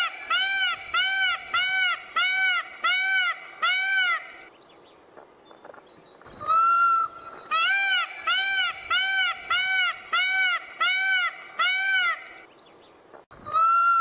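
Indian peafowl calling: loud, honking calls in bouts. Each bout is one longer note followed by about seven short calls, each rising then falling, roughly two a second. Two bouts are split by a pause of about two seconds, and a third starts near the end.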